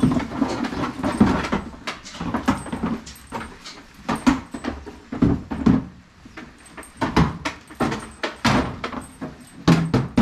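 Lambs bleating as they crowd and jostle, over a steady run of irregular knocks and rustles.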